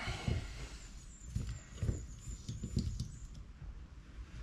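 Hand screwdriver turning out the Torx crankcase screws of a Stihl MS 200T chainsaw: scattered light clicks and metal-on-metal scraping, with a faint high squeak over the first three seconds.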